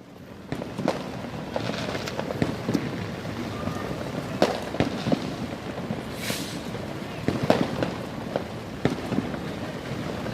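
Fireworks and firecrackers going off in an irregular string of sharp cracks and bangs over a steady crackling haze, with a brief hiss about six seconds in.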